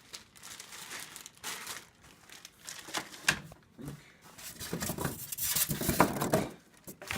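Packaging crinkling and rustling as it is handled and pulled open, in irregular bursts with small clicks, getting busier and louder near the end.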